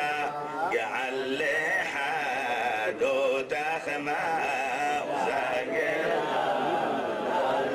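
Men chanting a Jewish prayer melody in the Adeni tradition: one man leads into a microphone with a wavering, ornamented line, and other men's voices sing along with him.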